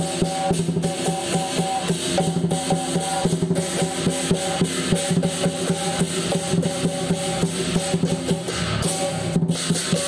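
Chinese lion dance percussion: a big lion dance drum beaten in a fast, steady rhythm together with clashing cymbals and a ringing gong.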